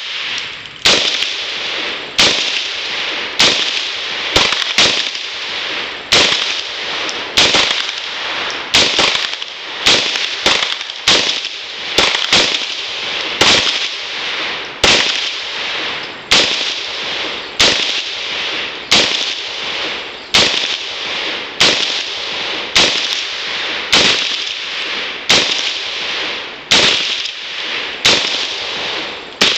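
Bushmaster AR-15 rifle in 5.56 mm firing single shots in semi-automatic, about one a second at a slightly uneven pace, each crack followed by a short echo. The rifle is feeding round after round from a 30-round magazine fitted with a new anti-tilt follower.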